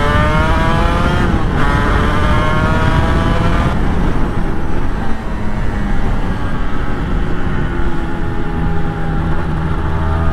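Honda NSR250R two-stroke V-twin under acceleration, revs climbing, dropping briefly at a gear change about a second and a half in, then climbing again. About four seconds in it eases off and runs at lower, steadier revs as the bike slows. Wind rumbles on the microphone throughout.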